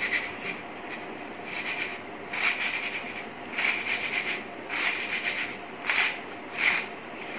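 Crisp fried banana chips tossed and shaken in a steel bowl: a string of short, dry rustling scrapes, roughly one a second.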